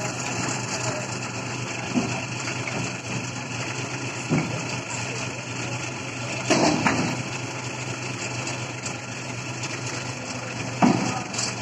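Toyota forklift engine running steadily as it holds a load of steel bitumen drums up to a truck bed, with a few knocks from the drums being handled, the loudest about six and a half seconds in and again near the end.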